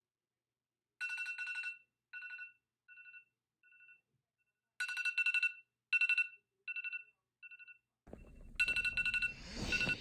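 Telephone ringing: a trilling electronic ring heard three times, each ring followed by quieter repeats that fade away like an echo. Under the third ring, near the end, a rustling, noisy background comes in.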